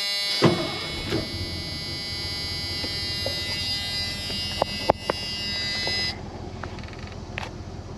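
Steady electric warning buzzer of a 1984 Ford F-150 sounding in the cab for about six seconds, then stopping. A thump comes about half a second in, and after it the truck's 302 V8 can be heard running underneath.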